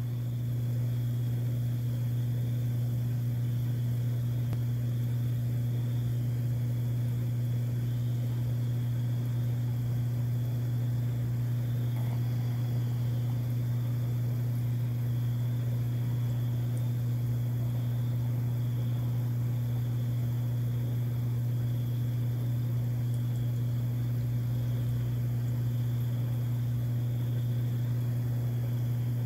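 A steady, unchanging low hum with a fainter higher-pitched whine wavering above it, like a motor or electrical equipment running nearby.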